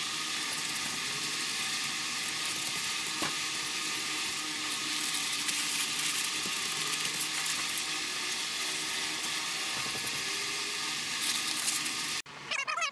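A steady, even hiss with faint rubbing while a rag is wiped over a metal engine bedplate. It cuts off abruptly about a second before the end, and short high squeaky chirps follow.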